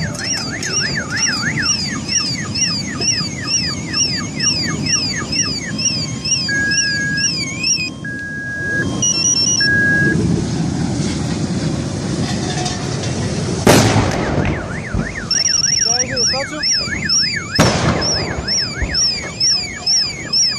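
Several car alarms wailing at once, with warbling sweeps and a repeating beep, over a steady low rumble. Two loud bangs come about fourteen seconds in and again about four seconds later: gas cylinders bursting in the burning truck.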